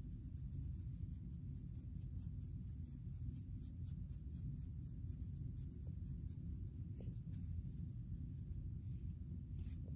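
Fine-tooth comb scraping through short, dandruff-flaked hair and scalp, a dry scratching in quick repeated strokes, several a second, over a steady low rumble.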